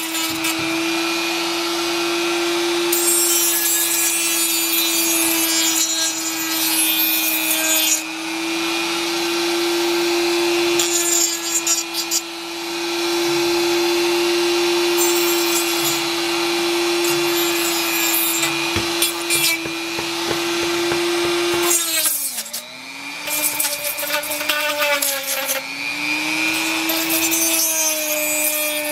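Handheld Dremel rotary tool with a sandpaper drum, running with a steady whine while sanding a 3D-printed plastic fidget spinner to smooth its rough edges and bearing holes. A rasping grind comes and goes as the drum touches the plastic. About 22 seconds in, the whine drops in pitch for a few seconds, then climbs back.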